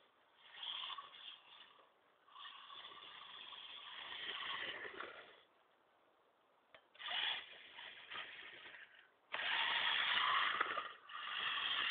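Maverick Strada DC Evo RC drift car's electric motor and gears whining in bursts as the throttle is worked, with short lulls between bursts. The bursts grow longer and louder near the end.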